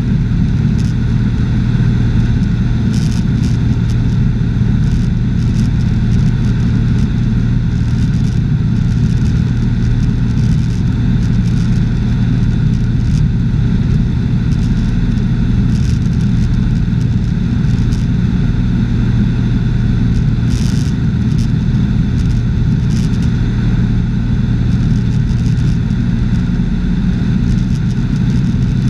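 Cessna 210's six-cylinder piston engine and propeller droning steadily in flight, heard inside the cabin as an even, loud low hum with wind rush over it.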